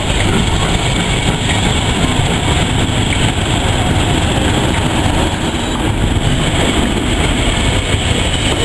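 Heritage passenger coaches rolling past on the rails: a steady, loud rumble and rattle of the train in motion.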